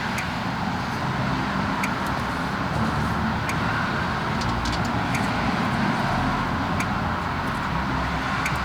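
Steady background noise, with light metallic clicks about every second and a half as the wheel bolts are threaded back in and run down.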